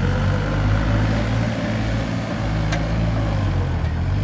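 New Holland 3630 tractor's three-cylinder diesel engine running steadily under heavy load while dragging a cultivator through deep mud, enough to lift the front wheels off the ground.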